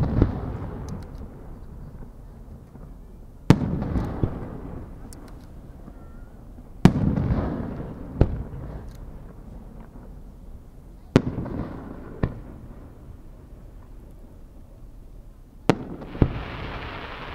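Aerial firework shells going off: sharp bangs every three to four seconds, often two close together, each followed by a long rolling rumble of echo. A hissing crackle near the end.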